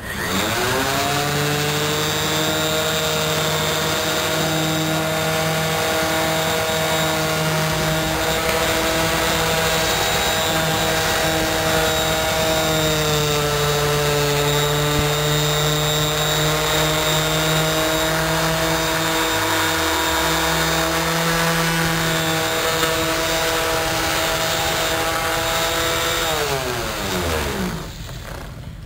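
Electric random orbital finishing sander switched on and spinning up, then running steadily while buffing a chrome motorcycle exhaust pipe with a cloth pad and polishing paste. Its pitch dips briefly about halfway through, and near the end it is switched off and winds down.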